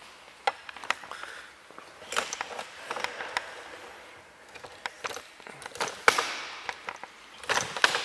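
Scattered clicks, knocks and rustling from hands working a BMW 3 Series door's exterior handle parts while putting the handle mechanism back. The loudest knock comes about six seconds in, with a quick cluster of clicks near the end.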